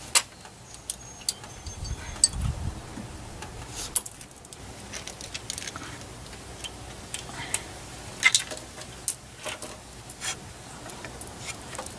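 Scattered light metallic clicks and clinks of hand tools and engine parts being handled while fitting timing components on a Ford 5.4 L 3V engine, with a dull low thud about two seconds in.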